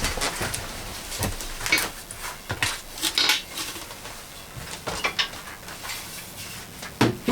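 Irregular clinks and knocks of hard objects being handled and set down, a scattered clatter with a sharper knock near the end.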